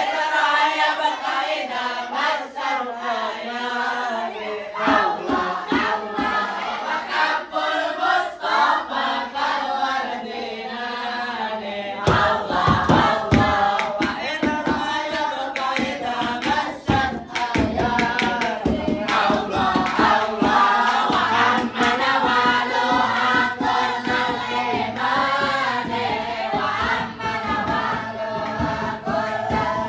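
A group of voices singing sholawat, Islamic devotional songs, together, over frequent sharp percussive beats. About twelve seconds in it grows louder and fuller.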